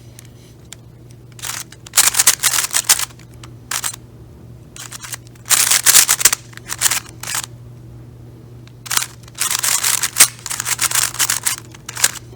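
Plastic speed cube being turned by hand: quick runs of clicking layer turns come in several bursts of about a second each, with short pauses between them.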